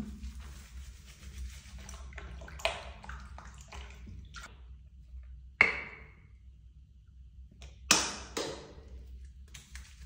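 Bath water in a plastic washtub sloshing and trickling as hands scoop it over a cat. Three sharper splashes or knocks stand out, spread through.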